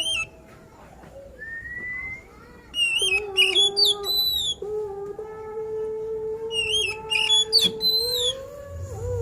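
Oriental magpie-robin (kacer) singing: two bursts of sharp, quickly sliding whistled notes, one a few seconds in and one near the end, over a long, steady, lower drawn-out note.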